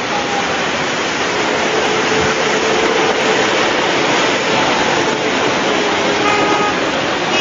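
Loud, steady rush of splashing water as a bus ploughs through a flooded road. A vehicle engine's faint steady tone runs underneath.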